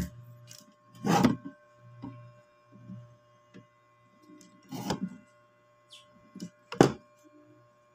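Handling noise from a speaker's amplifier board and its wiring being moved against the cabinet's metal panel: a few scattered knocks and clatters, the loudest about a second in and another near the end. A steady low hum runs underneath.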